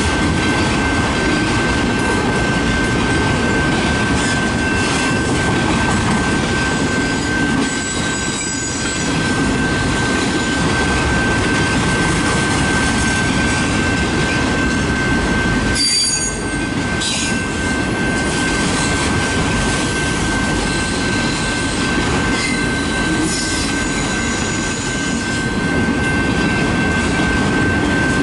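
Freight train of autorack cars rolling past, with a steady wheel rumble and a constant high whine. Brief sharper high squeals come about 8 and 16 seconds in.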